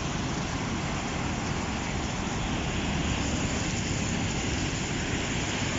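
Floodwater rushing steadily, an even noise with no let-up.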